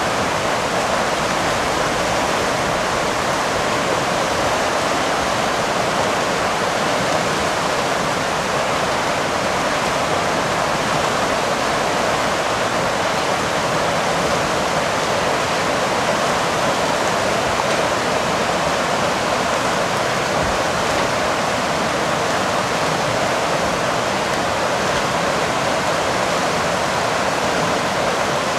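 Whitewater rushing steadily through and below the gates of a salmon spawning-channel weir: a loud, even rush of turbulent water.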